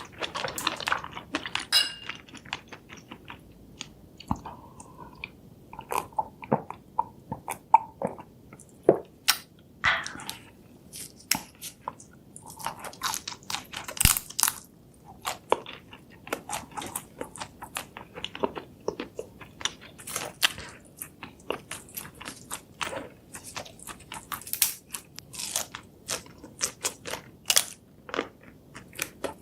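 Close-miked chewing and biting of crunchy food, with many sharp, irregular crunches.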